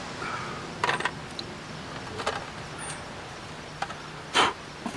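Camp gear being handled: a few short knocks and clatters, the loudest about four and a half seconds in, over a faint steady outdoor background.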